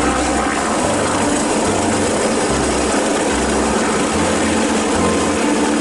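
Police helicopter on the ground with its turbine engine running and main rotor turning: a steady engine drone with a low, uneven throb underneath.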